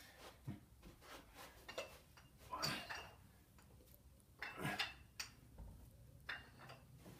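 Dumbbells being gripped and lifted, with faint metallic clinks and knocks of the weight plates and two louder rattles, about two and a half and four and a half seconds in.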